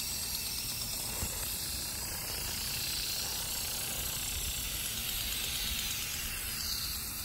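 Steady high hiss of water spraying from a garden sprinkler.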